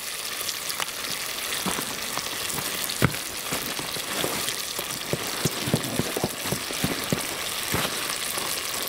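Food sizzling and frying in a pot set on a wood campfire, a steady hiss with scattered sharp pops and crackles.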